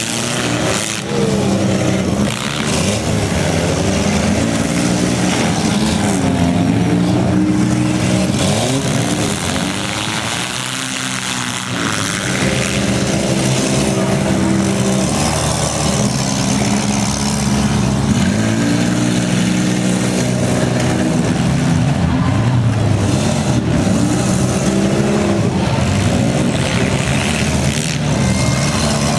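Several small demolition-derby cars' engines revving up and down at once as they drive and ram around a dirt arena.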